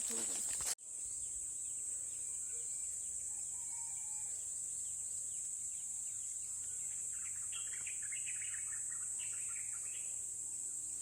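A steady high-pitched insect drone with birds chirping over it, a run of chirps between about seven and ten seconds in. The sound drops out for a moment just under a second in.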